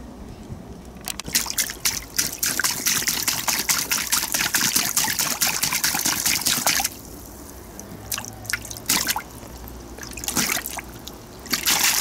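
Shallow water splashing and trickling in an inflatable paddling pool as a baby moves and plays in it. It comes and goes, with quieter stretches and short spurts in the second half.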